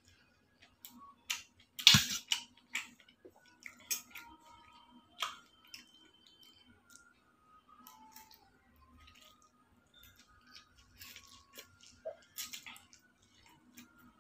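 Close-up eating of noodles: irregular sharp clicks and clinks of a metal fork against steel plates, with chewing in between. The loudest clatter comes about two seconds in.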